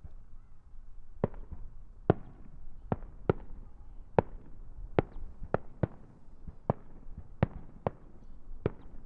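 Starmine fireworks: aerial shells bursting in quick succession, a string of sharp bangs at uneven spacing, about one to two a second, starting about a second in, each with a short echo.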